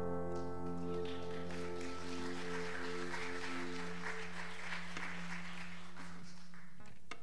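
A small congregation applauding over the last held chord of a worship band's keyboard. The chord and the clapping die away near the end.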